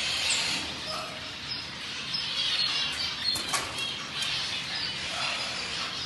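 A flock of small cage birds chirping and calling over one another, with wings fluttering.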